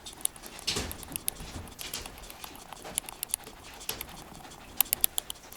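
Soviet Chinchilla rabbit softly grinding its teeth, an irregular run of quick clicks several times a second, with a few louder clicks near the end: the tooth purring of a contented, happy rabbit.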